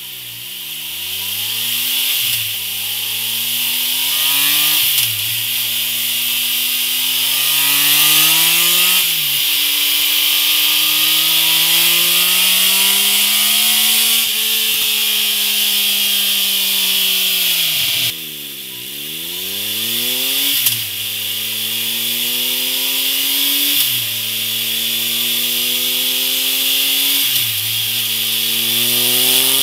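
Triumph Tiger Explorer 1200's inline three-cylinder engine pulling hard through the gears on a dyno. The note rises in each gear and drops at each upshift. It runs first through the stock silencer, then winds down about eighteen seconds in and pulls through the gears again on a MIVV Speed Edge slip-on silencer. A steady high hiss runs beneath it.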